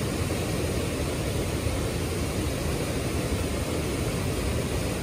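A fast river rushing over boulders: a steady, even rush of white water.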